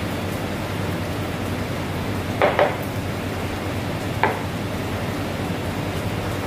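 Steady rushing background of a working restaurant kitchen, with a quick double clatter of kitchenware about two and a half seconds in and one more sharp knock about four seconds in.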